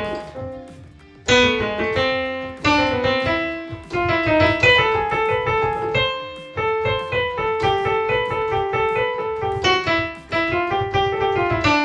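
Electronic keyboard with a piano voice playing a newly learned piece, a melody over lower held notes, with a short pause about a second in before the playing picks up and runs on steadily.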